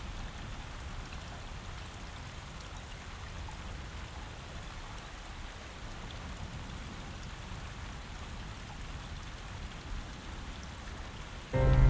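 Steady low background noise with a few faint ticks, like outdoor location ambience; music comes in suddenly right at the end.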